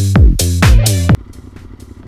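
Electronic dance music with heavy bass notes that slide down in pitch, cutting off abruptly about a second in. A much quieter, low steady rumble of a motorcycle engine follows.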